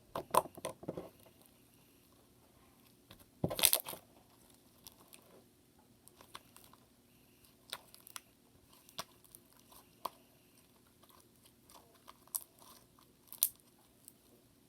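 Homemade slime being squished and kneaded by hand, making irregular sticky clicks and small pops. There are louder clusters in the first second and about three and a half seconds in.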